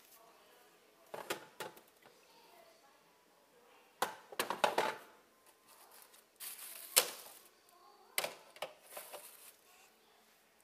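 Food containers being handled on a refrigerator shelf: scattered light knocks, clatters and rustles, in four short bunches, with the sharpest click about seven seconds in.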